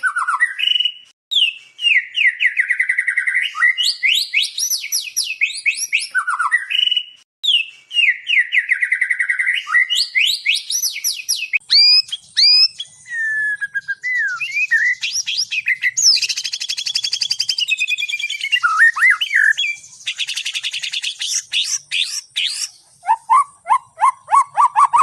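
A songbird singing a long, varied song. Fast runs of chirps and trills come in similar phrases repeated every few seconds, then give way to harsher buzzy notes and slurred whistles in the second half.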